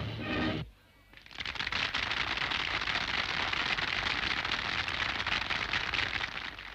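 A military brass band's march stops on its final chord just under a second in. After a short pause, a crowd breaks into steady applause.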